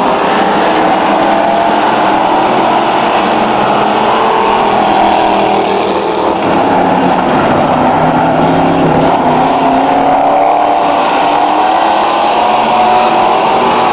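Engines of several demolition-derby trucks racing around an oval track, their pitch overlapping and rising and falling as they accelerate and lift off.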